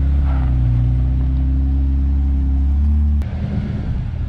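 Jeep Wrangler's engine running steadily at low revs as it crawls up a slickrock ledge, rising a little in pitch near the end. It cuts off abruptly and gives way to a rougher, uneven engine rumble from another off-road vehicle climbing.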